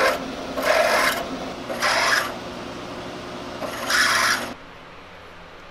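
Twist drill on a machine spindle cutting through a thick steel plate, with a steady motor hum and a gritty cutting noise that surges roughly every second as the bit is fed in. The machine shuts off about three-quarters of the way through.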